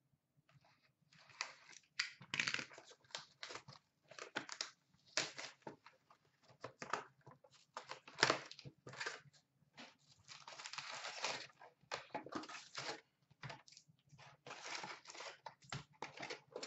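A sealed box of 2016-17 Upper Deck SP Authentic hockey cards being torn open and its packs taken out: irregular crinkling and tearing of wrapping and cardboard in short clusters, starting about a second in.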